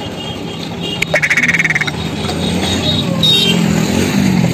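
Busy street-market background noise with a low murmur, and a short, rapid rattling trill about a second in that lasts under a second.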